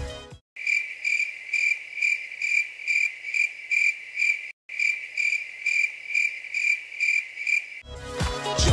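Cricket chirping sound effect: an even, high chirp about twice a second, with a short break midway. Pop music cuts off just as the chirping starts and comes back in near the end.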